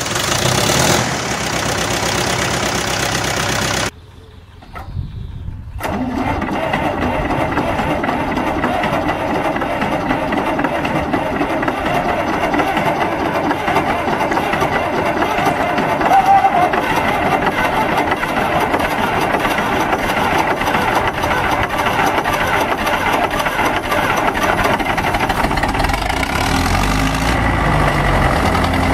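Diesel tractor engines at cold start: a Zetor Crystal 8011's diesel running for a few seconds, then, after a short drop in level at about four seconds, an older Zetor's diesel catching at about six seconds and idling steadily while it smokes.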